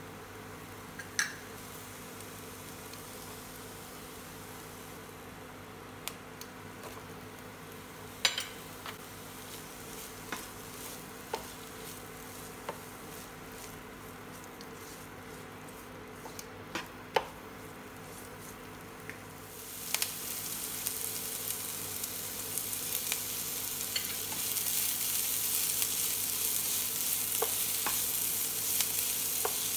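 Chopped onion, garlic, ginger, lemongrass and chilli in oil in a nonstick frying pan being stirred with a spatula: first scattered clicks and taps of pieces and spatula against the pan over a steady low hum, then about two-thirds in the pan starts sizzling and the frying grows louder as it heats.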